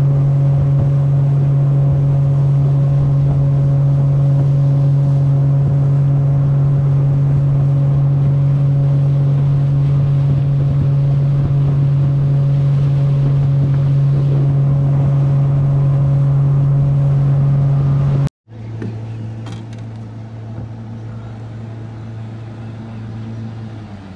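A boat's outboard motor running at a steady speed, loud and even in pitch. About eighteen seconds in it breaks off abruptly, giving way to a quieter, lower steady engine hum.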